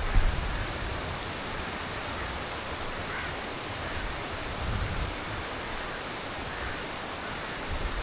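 Heavy tropical monsoon rain falling steadily, an even hiss with no break. There is a brief low thump at the very start.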